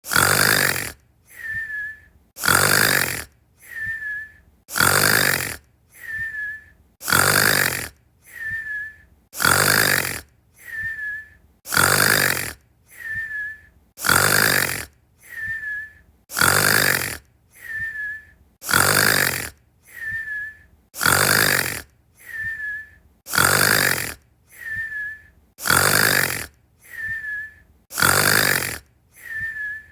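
Snoring repeating evenly about every two seconds: a loud snore on each breath in, then a softer breath out carrying a short high whistle.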